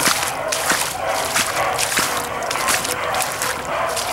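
Beagles baying while running a rabbit through the swamp.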